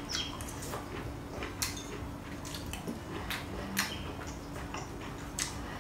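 A person chewing a mouthful of crunchy stir-fried broccoli, with irregular soft crunches and small mouth clicks.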